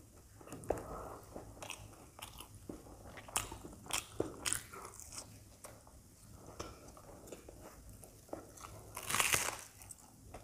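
Close-miked eating sounds: chewing crispy puri with dum aloo, with scattered crunches and wet mouth clicks. A louder, longer crunchy bite comes near the end.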